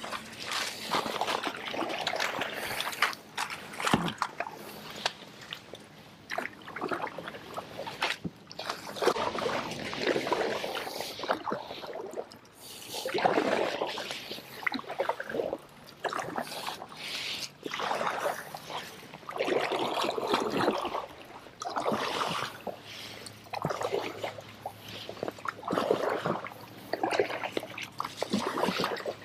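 Kayak paddle strokes in shallow marsh water: repeated splashes and sloshing, each followed by water trickling off the blade, coming every second or two.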